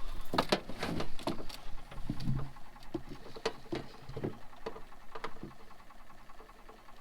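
Irregular taps, clicks and knocks from handling in a fishing boat, quick and thick for the first three seconds, then fewer and softer.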